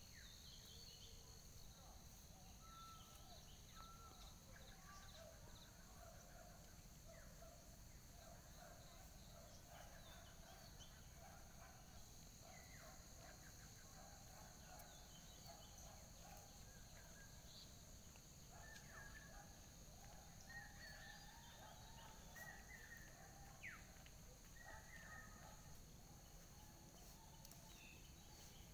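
Faint outdoor ambience: a steady high insect trill, with scattered faint distant calls over it that come more often in the second half.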